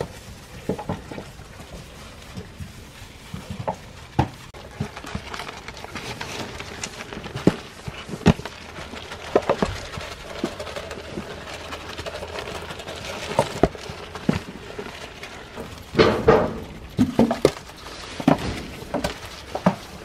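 Sheep and lambs eating grain from a rubber feed pan: scattered clicks and knocks of muzzles and teeth working through the kernels and bumping the pan, with a louder cluster of sounds about sixteen seconds in.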